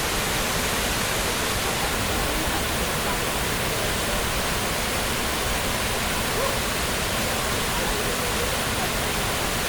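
Waterfall crashing steadily, a dense unbroken rush of falling water.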